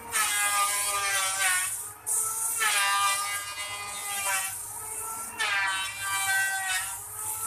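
Sandpaper held by hand against a wooden spindle turning on a lathe: a high rasping hiss with a squealing whine that slides down in pitch. The squeal comes in surges about every two to three seconds.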